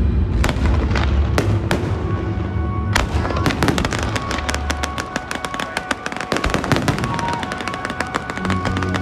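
Aerial fireworks display: a few separate booming shell bursts in the first three seconds, then a dense, rapid crackling of many small reports from about three and a half seconds on. Music plays underneath.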